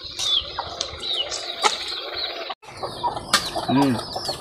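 Birds chirping over and over in short, hooked chirps, with a few sharp clicks now and then and a short lower call near the end.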